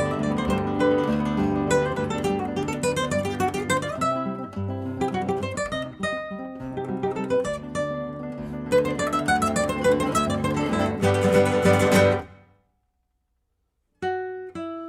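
Background music of acoustic guitar, plucked and strummed, that stops dead about twelve seconds in and starts again after a gap of nearly two seconds.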